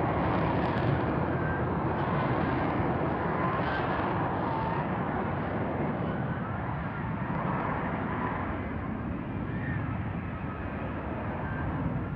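Loud, steady jet noise from an F-35B fighter hovering low on its lift fan and downward-swivelled exhaust nozzle.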